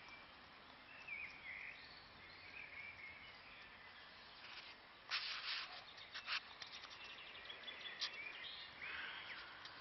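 Chickens clucking faintly now and then. A cluster of short, sharp noisy bursts about five to six and a half seconds in is the loudest part, followed by a quick run of faint ticks.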